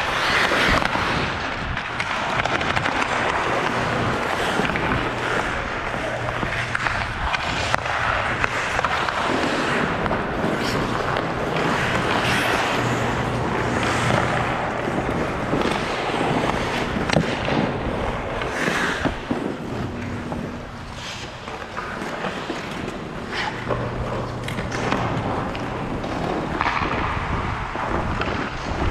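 Hockey skate blades scraping and carving on rink ice, with scattered sharp knocks of sticks and puck throughout. A low steady hum comes and goes underneath.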